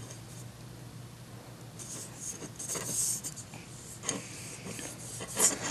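Paper template being slid and rubbed flat onto a glue-stick-coated aluminum piece: soft scraping and rustling, with a few sharp clicks near the end.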